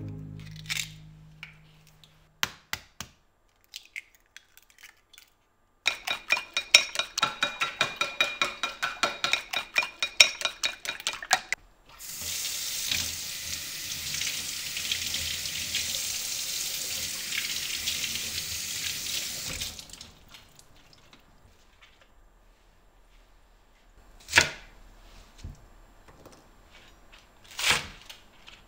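Quick, even clicking in a bowl, about seven strokes a second for some five seconds, like eggs being beaten. Then a kitchen tap runs water over the hands for about eight seconds and stops. Near the end come two sharp knocks, like a knife on a wooden cutting board.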